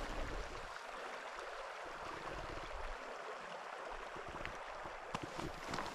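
Steady rush of a shallow river running over riffles, with a few faint clicks near the end.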